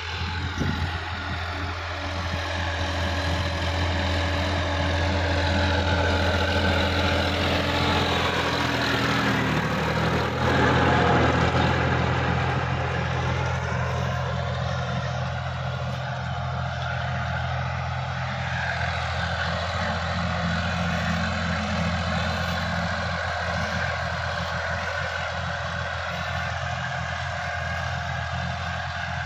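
Sonalika DI-50 RX diesel tractor engine running steadily under load while pulling a rotary tiller through the soil. The engine note shifts in pitch and briefly grows louder about ten seconds in.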